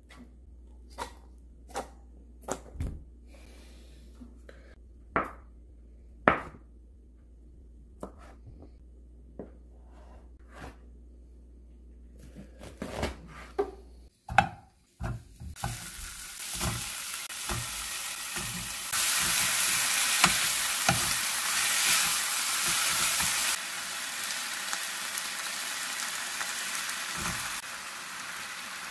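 Scattered knocks and taps as canned luncheon meat is shaken and knocked out of its metal tin onto a wooden cutting board. About halfway through, kimchi and sliced ham start sizzling steadily in a frying pan as they are stirred. The sizzle is loudest a few seconds later.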